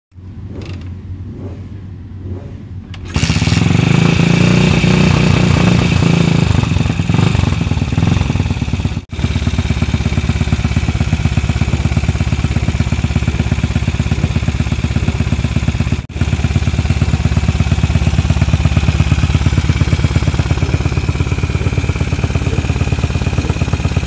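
Ducati 350 Desmo single-cylinder four-stroke being kick-started: it catches about three seconds in and then runs loudly with a fast, even firing beat, cut by two brief dropouts.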